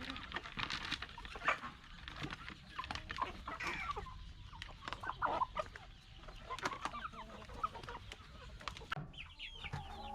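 Chickens clucking and calling, many short overlapping calls from a group of birds, with scattered clicks and taps.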